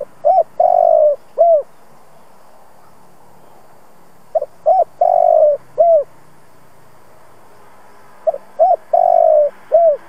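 Spotted dove cooing: three identical phrases about four seconds apart, each two short coos, a longer drawn-out coo and a final short coo. It is a caged decoy dove's call, the kind used to provoke other spotted doves into calling.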